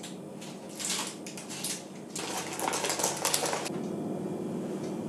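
Baking parchment being peeled off the bottom of a baked sponge cake, crinkling and rustling in two stretches, a short one about a second in and a longer one after two seconds.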